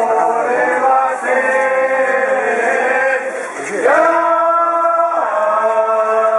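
Men's voices singing a chant, with long held notes that slide up or down into the next pitch.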